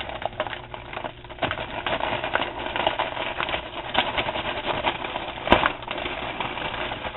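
The top of an Orville Redenbacher's Pop Up Bowl microwave popcorn container being peeled back and pulled off: continuous crinkling and crackling, with one sharper snap about five and a half seconds in.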